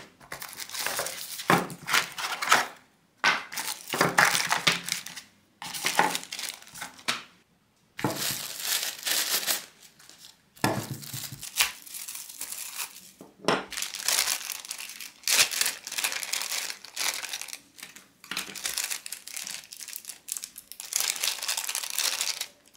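Clear plastic packaging bags crinkling and rustling in irregular bursts, with short pauses, as hands handle and unwrap accessories.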